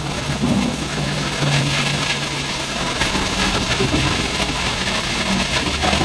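Man-made waterfall pouring down a stepped rock face: a steady rushing of falling water.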